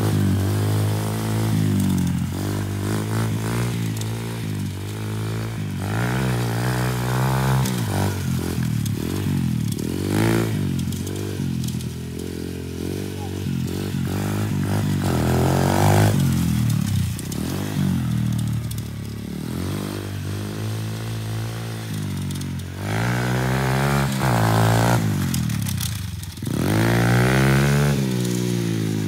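Pit bike engine revving up and down over and over as it is ridden, its pitch rising and falling with the throttle.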